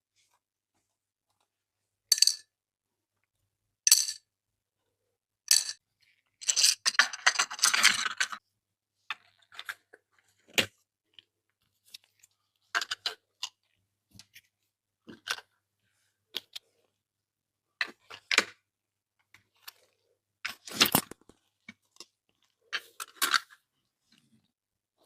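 Miniature toy pieces and their packaging being handled in a close-miked unboxing: single sharp plastic clicks and taps a second or two apart, with about two seconds of continuous crinkling and crackling about seven seconds in. Dead silence falls between the sounds.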